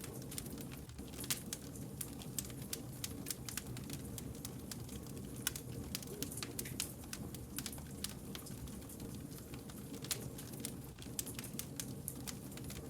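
Wood campfire crackling: irregular sharp snaps and pops over a steady low rumble of burning logs.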